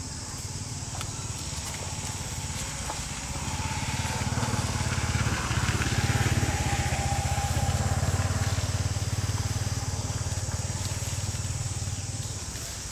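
A motor vehicle passing by: a low engine drone swells over a few seconds, peaks in the middle and fades away, over a steady high buzz of insects.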